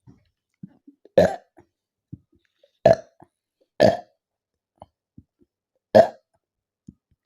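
A woman burping four times, short loud burps a second or two apart, brought up by drinking a 2-litre bottle of fizzy Thums Up cola. Faint small clicks come between the burps.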